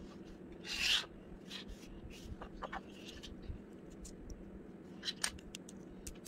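Small plastic LEGO bricks and plates handled and pressed together by hand: a short rubbing scrape about a second in, then scattered light clicks and taps.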